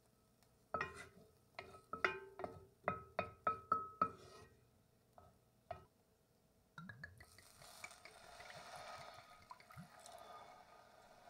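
A wooden spoon knocks and scrapes against an enameled cast-iron Dutch oven in a quick run of ringing clinks. About seven seconds in, red wine is poured into the hot pot and hisses and sizzles as it deglazes the pan.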